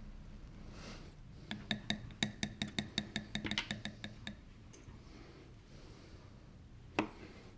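A kitchen utensil clinking against a dish: a quick run of a dozen or so light, ringing taps over about three seconds, then one sharp knock near the end.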